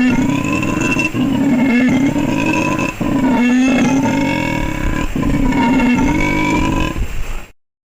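Howler monkey howling: a loud, drawn-out call repeated in long bouts with brief breaks, cutting off suddenly near the end.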